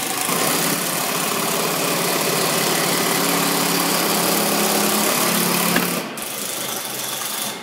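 An electric power tool running steadily with a strong hiss and a motor hum; the hum drops away about six seconds in while a quieter hiss continues.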